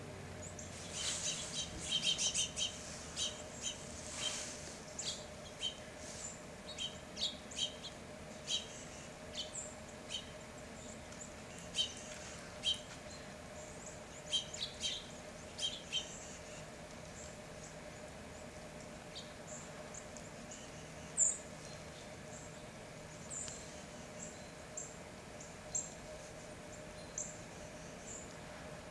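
Small songbirds calling with short, high chips, many in quick succession through the first half, then fewer and more spaced out.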